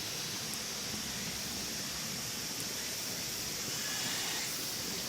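Steady outdoor background noise, an even hiss, with a couple of faint ticks.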